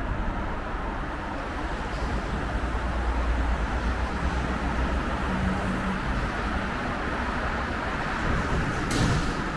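Outdoor city ambience: a steady low rumble of road traffic with mild wind on the microphone, and one short sharp click about nine seconds in.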